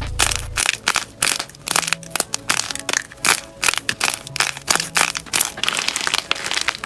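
Slime being pressed and worked, giving a dense, irregular run of sharp crackles and pops.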